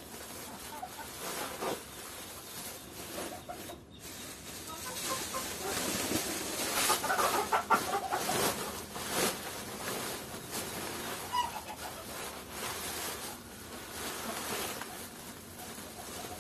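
Chickens clucking, over the crinkle and rustle of a sack and dry straw bedding being scooped by hand into nest boxes. The rustling is loudest around the middle.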